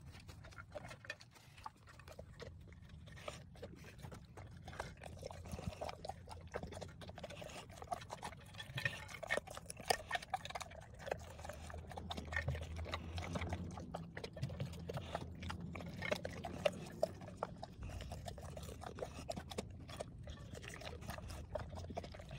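A Bullmastiff eating dehydrated meat treats off a plate: wet chewing and licking with many small irregular clicks, busier from about eight seconds in.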